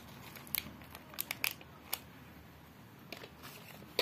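Clear plastic bags holding earring cards crinkling and clicking as a hand handles them on a display rack: several short, sharp crackles scattered through, between stretches of faint room noise.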